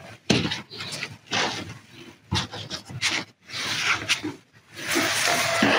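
Hands handling and repositioning two shoulder bags: the bags and their straps rub and scrape against each other and the backdrop in irregular strokes about a second apart, then a longer continuous rub near the end.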